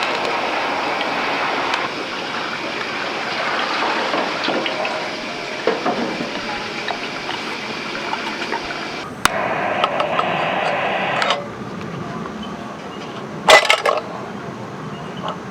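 Steady hiss of heavy rain. About nine seconds in, liquid is poured for about two seconds, and near the end there is a brief clatter of dishes.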